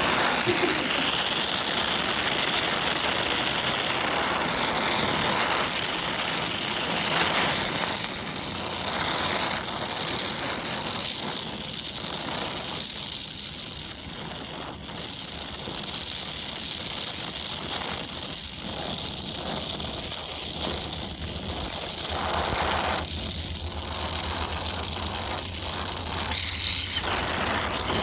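Oxy-acetylene brazing torch flame hissing steadily as it heats a copper tube, a little quieter for a moment about halfway. A low steady hum joins it about two-thirds of the way in.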